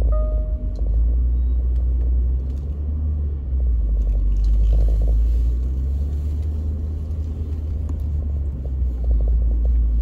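Steady low rumble of a vehicle driving slowly over a rough grass field, heard from inside the cab.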